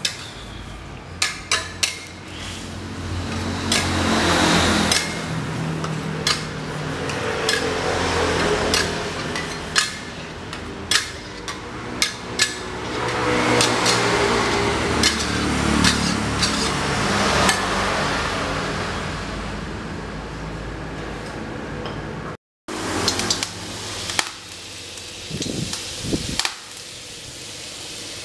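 Metal spatula clanking and scraping against a steel wok as chicken soup is stirred, with swells of hissing from the steaming, boiling wok.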